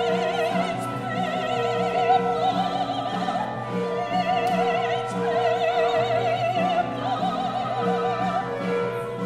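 Female operatic voice singing long held notes with a wide vibrato, over a small chamber ensemble playing a steady repeating pulse, in a contemporary chamber opera.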